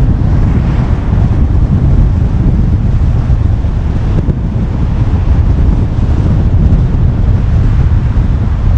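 Wind buffeting a GoPro action camera's microphone: a loud, steady low rumble over the road noise of a car driving along.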